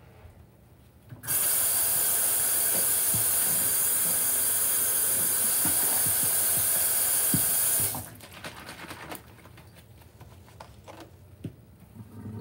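Kitchen tap running hard into a sink full of sudsy water: a steady rushing hiss that starts about a second in and shuts off sharply some six seconds later. Near the end, liquid is poured from a bottle onto the soaked sponge in the suds.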